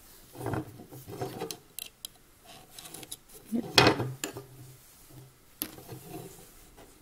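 Plastic round knitting loom being worked by hand: a metal loom pick clicks and taps against the plastic pegs and yarn rubs as loops are lifted over, with one louder knock about four seconds in.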